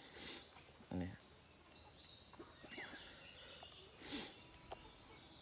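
Steady high-pitched drone of insects in vegetation. A soft thump about a second in and a brief rustle near four seconds come from hands handling seedlings in a plastic basin.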